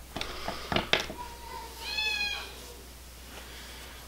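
A few light clicks in the first second, then a cat meows once, briefly, about two seconds in.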